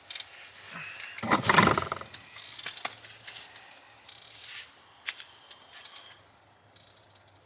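Rifle bipod being handled and adjusted: scattered metallic clicks and rattles, with a louder rustle and thump of handling about a second and a half in.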